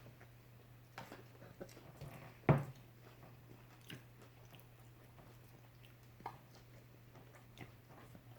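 People biting into and chewing BLT sandwiches made with turkey bacon, lettuce and tomato on soft rolls: small scattered mouth clicks, with one louder, short sound about two and a half seconds in.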